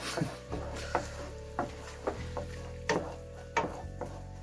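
Wooden spatula stirring a sauce in a non-stick frying pan, knocking and scraping against the pan in irregular strokes about once a second.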